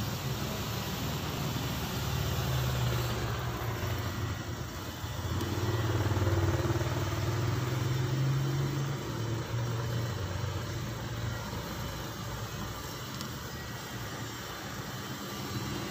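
A motor engine running with a steady low hum, swelling louder for a few seconds around the middle.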